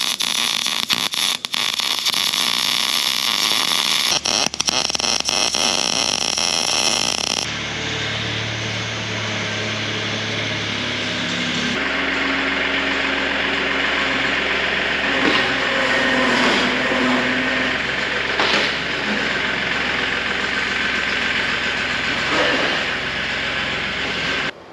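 MIG welder arc crackling steadily on a steel seam for about seven seconds, briefly breaking off a couple of times. Then a small vehicle engine runs steadily, shifting pitch a couple of times.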